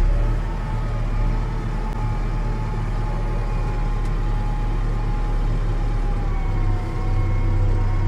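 McCormick MC130 tractor engine running steadily, heard from inside the cab: a strong low drone with a thin whine above it that dips slightly in pitch near the end.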